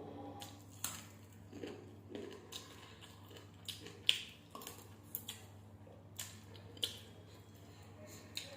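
A person chewing and biting chicken fried biryani close to the microphone: irregular crunches, smacks and mouth clicks, over a steady low hum.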